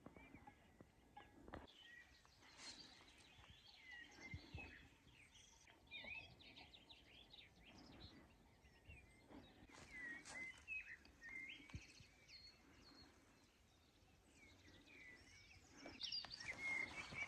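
Faint birdsong: small birds chirping and calling in short, repeated notes, with a few soft knocks. Near the end a louder rustling or shuffling noise comes in.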